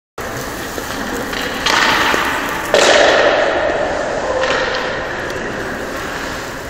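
Ice skate blades scraping across rink ice, two sudden scrapes about a second apart, the second the loudest and fading slowly, with a smaller one a couple of seconds later.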